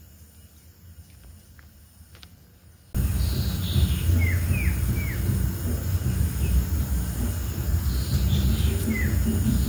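Quiet outdoor ambience with a few faint clicks, then a loud steady noise with a heavy low rumble cuts in suddenly about three seconds in. Birds chirp over it: a quick run of three short falling chirps, and another near the end.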